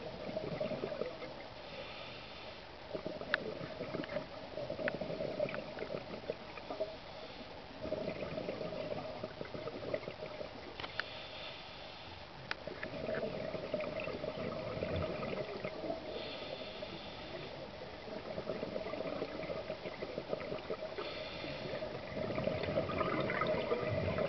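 Scuba breathing heard underwater through a diver's regulator: a few slow breaths, each a short hiss on the inhale followed by a longer rush of exhaled bubbles. A few sharp clicks are heard among them.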